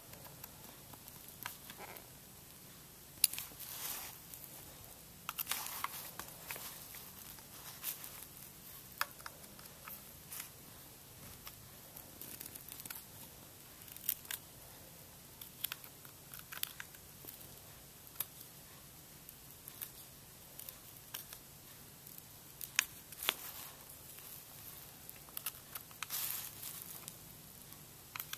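Screwdriver turning the small screws on a metal 1932 Ford-style tail light housing: scattered light clicks and scrapes of metal on metal, with handling noise as the light is turned in the hand.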